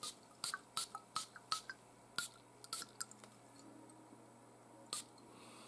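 A quick run of light, sharp clicks, about a dozen in the first three seconds, then a single click near the end.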